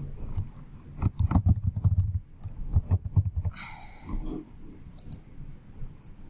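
Typing on a computer keyboard: a quick run of keystrokes lasting about two and a half seconds, then a couple of single clicks near the end.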